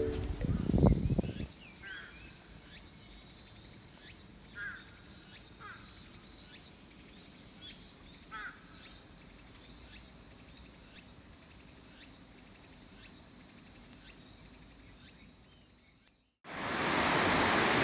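Steady, high-pitched drone of cicadas, with a few short chirps over it; it cuts off near the end.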